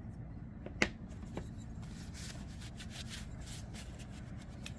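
Small parts of a disassembled folding knife being handled: a sharp click a little under a second in, a fainter click shortly after, then soft rubbing and rustling as the pieces are moved about.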